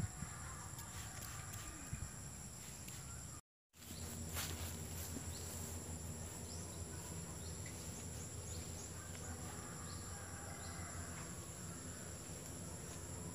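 Steady chorus of insects, a constant high-pitched trill over a low hum. There are a few short taps in the first couple of seconds, and the sound drops out for a moment about three and a half seconds in.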